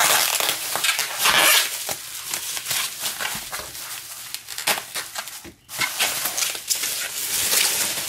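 Plastic bubble wrap crinkling and crackling as it is pulled and cut open by hand, with a brief pause about five and a half seconds in.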